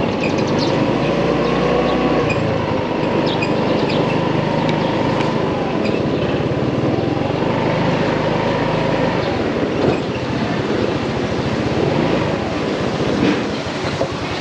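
Motorcycle engine running while riding, its note wavering slightly, under steady wind and road noise on the microphone.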